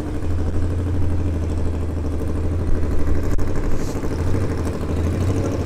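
Nissan Sentra coupe's engine idling steadily with a low drone as the car creeps forward after its burnout.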